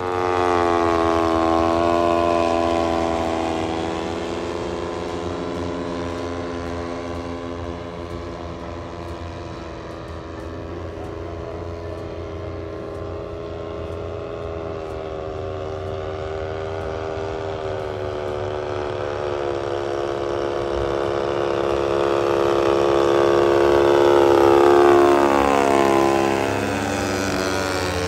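Propeller engines of large radio-controlled model aircraft running: one at full throttle on the takeoff run, then a steadier drone from planes aloft. Near the end it swells and the pitch drops as a plane passes low and close.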